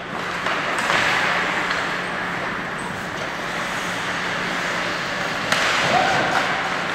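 Ice hockey in play: skates scraping on the ice with sticks and puck clattering, and sharp knocks about a second in and at about five and a half seconds. A steady low hum runs underneath.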